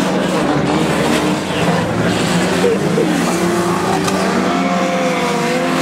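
Several banger-racing cars' engines running at once, their notes overlapping and shifting as they rev, over a steady haze of tyre and track noise.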